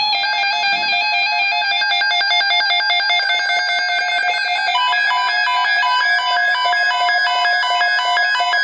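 Weather-radio emergency alert tone announcing a severe thunderstorm watch: a steady electronic tone pulsing rapidly, with a second, higher tone joining about five seconds in.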